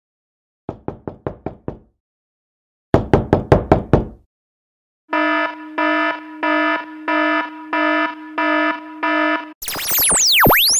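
Title-sequence sound effects: two quick runs of knocks, the second louder, then a buzzing beep pulsing about twice a second, then a tangle of tones sweeping up and down near the end.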